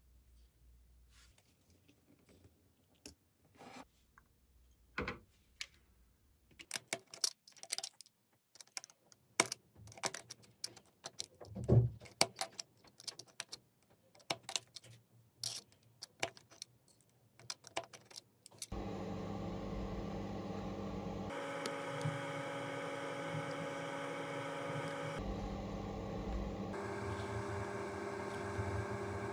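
Irregular clicks, taps and light clatter of small hard objects being handled. About two-thirds of the way through, this gives way to a steady electric hum that changes abruptly a few times.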